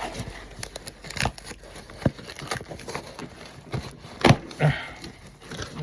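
A package being handled and opened by hand: scattered clicks and knocks with rustling and crinkling of packaging, the sharpest knock about four seconds in.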